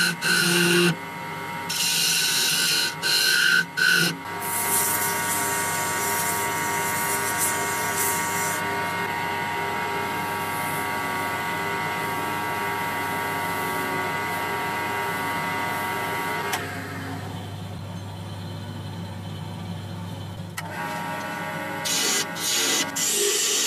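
Electric abrasive power tool running with a steady whine, with harsh rasping bursts of grinding in the first few seconds and again near the end. The whine falls away about two-thirds of the way through.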